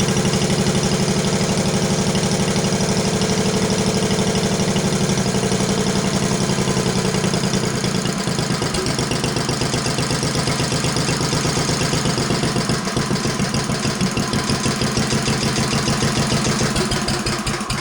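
Single-cylinder cast iron Briggs and Stratton 9 hp engine running on a rebuilt Flo-Jet carburetor during idle tuning. It runs steadily, slows about six seconds in to a lower idle with distinct firing beats, and drops away at the very end.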